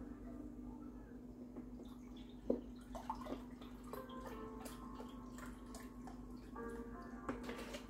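Faint dripping and small scattered clicks of chicken broth in a Dutch oven on the stove, over a steady low hum.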